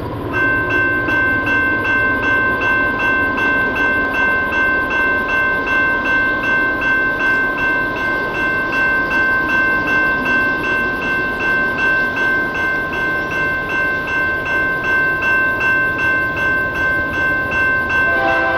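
Railway level-crossing warning bell ringing steadily, about two strikes a second, as a freight train approaches. Near the end the lead locomotive's horn starts to sound over it.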